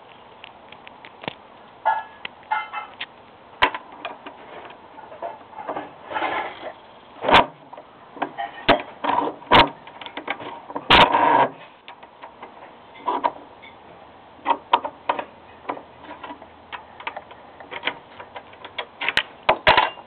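Irregular small metal clicks and short rattles from a lock and small hand tools being handled.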